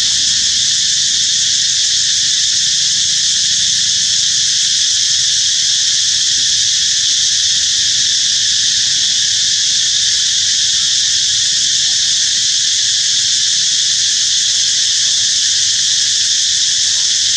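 A chorus of insects droning loudly and steadily at a high pitch, without a break.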